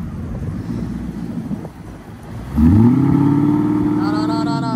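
Lincoln LS sedan's engine running, then revved hard about two and a half seconds in, held at high revs and easing off near the end.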